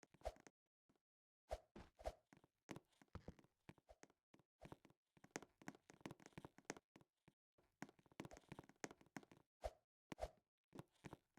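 Faint, irregular taps and clicks of small hard objects knocking together, after a short silent pause.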